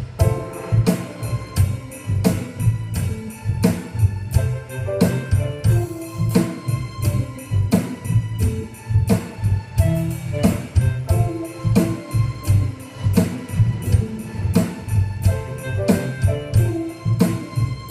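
Instrumental break of a song: a steady drum beat with a bass line and held melodic notes, no singing.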